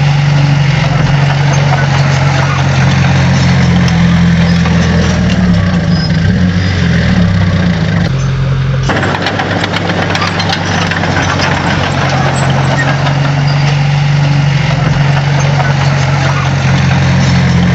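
Diesel engine of a heavy earthmoving machine running steadily, its pitch wavering briefly about midway as the load changes, with scattered clicks and crackles over the top.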